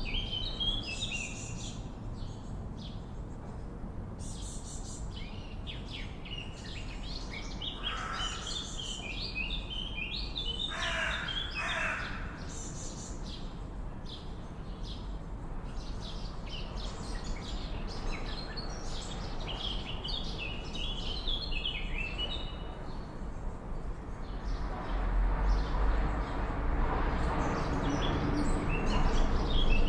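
Swallows twittering in rapid high chirps, with a few lower calls about a third of the way in. A rushing background noise grows louder near the end.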